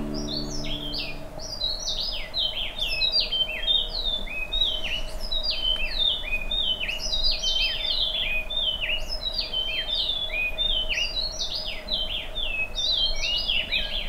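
Tropical forest birds calling, with dense, overlapping short chirps that swoop and fall in pitch, over a faint steady drone.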